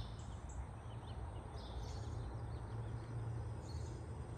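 Outdoor ambience: a steady low rumble with scattered short, high bird chirps.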